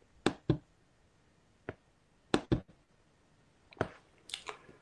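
Computer mouse clicking as the slideshow is advanced: a handful of sharp clicks, several in pairs about a quarter second apart, with a short cluster near the end.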